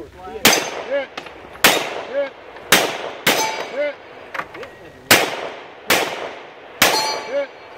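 Seven handgun shots fired at an uneven pace, each followed about half a second later by the short ringing clang of a steel target being hit.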